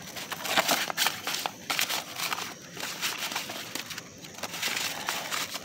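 Paper pamphlets being gathered up off rough asphalt by a gloved hand: a run of short scrapes, rustles and crinkles as the paper slides on the gritty ground.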